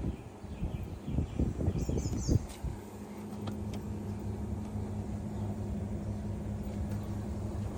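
Pool equipment running with a steady electric hum that comes in about two and a half seconds in, after irregular low rumbles. A bird chirps briefly about two seconds in.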